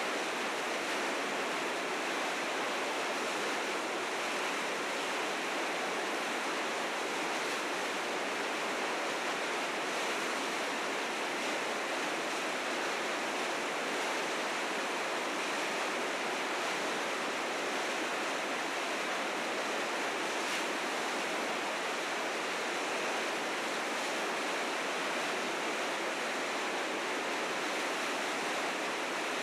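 River rapids rushing: a steady, full roar of fast water swollen with spring snowmelt, unchanging throughout.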